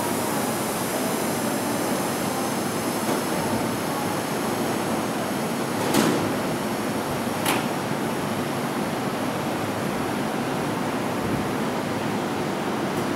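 Steady hum of a Seibu 30000 series electric train standing at a station platform, its air conditioning and auxiliary equipment running. Two short sharp knocks come a little past the middle, about a second and a half apart.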